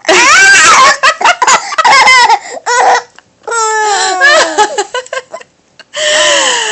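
Baby laughing in a run of short, high-pitched giggles, then a longer laugh that falls in pitch about halfway through. After a brief pause, another loud burst of voice starts near the end.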